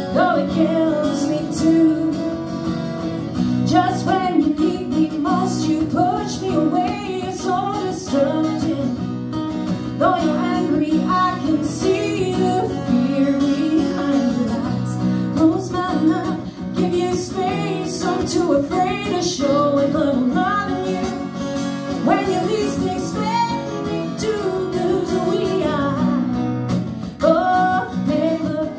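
A woman singing a slow song with two acoustic guitars accompanying her.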